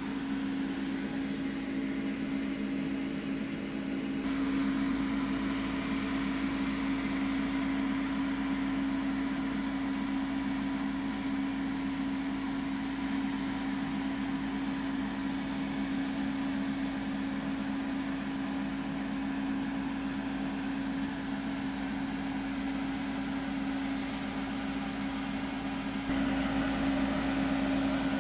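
Restored vintage Christie 6/12-volt battery charger running, its transformer humming steadily with a hiss over it; the hum gets a little louder about four seconds in and again near the end.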